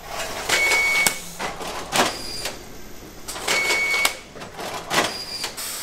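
Brüninghaus automatic box-packaging machine working through its cycle: a short high whine with clatter, then a sharp clack, repeated twice about three seconds apart.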